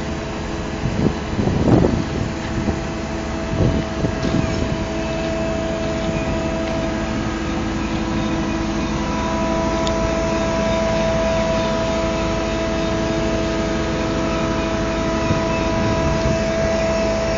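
A crane's engine running steadily with a whine of several level tones, which grows stronger about halfway through.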